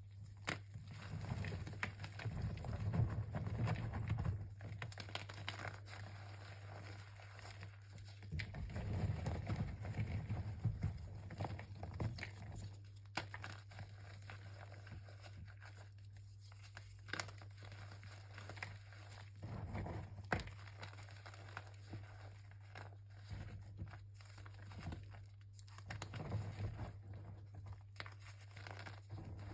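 Crinkling and rustling in irregular bursts with small clicks, as a box of chalk and its wrapping are handled, over a steady low hum.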